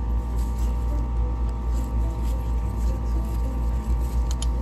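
Steady low machine hum, with a few faint clicks near the end.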